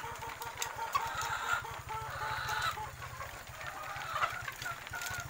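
A flock of caged white laying hens clucking, many birds calling at once with short overlapping clucks.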